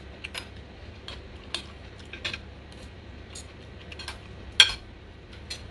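Metal spoon and fork tapping and scraping on a ceramic plate while eating rice: a string of irregular light clinks, with one louder clink about four and a half seconds in.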